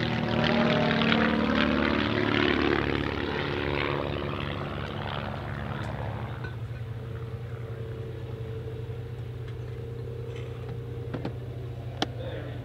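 Two Van's RV-8 aerobatic aircraft flying past in formation, their piston engines and propellers loudest in the first few seconds and dropping in pitch as they go by, then easing to a steadier, fainter engine drone. A single sharp click comes near the end.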